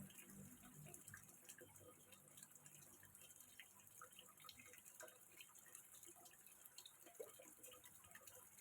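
Faint water trickling and dripping into a small fish pond: many small irregular plinks over a steady hiss.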